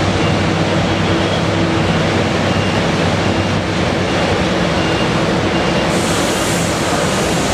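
Caterpillar 320D L excavator's diesel engine running steadily as it digs wet clay, under a constant rushing noise. A higher hiss joins near the end.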